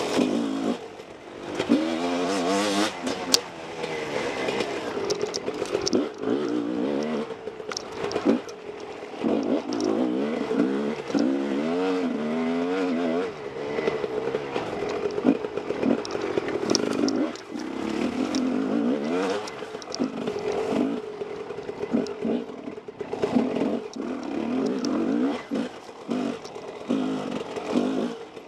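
Husqvarna WR 300 single-cylinder two-stroke dirt bike engine revving up and down over and over while riding a rough trail, with scattered sharp knocks and clatters.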